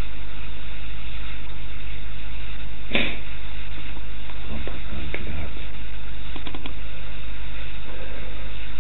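Steady low hum with a faint hiss over it, and one sharp click about three seconds in.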